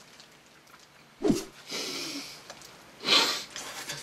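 Mouth noises of people eating: a short falling "mm" about a second in, then two breathy intakes of air, the louder one about three seconds in.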